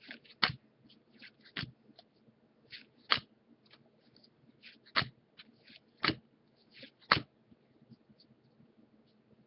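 Trading cards and their pack wrapper being handled: soft rustling and crinkling, broken by about six sharp snaps or taps in the first seven seconds.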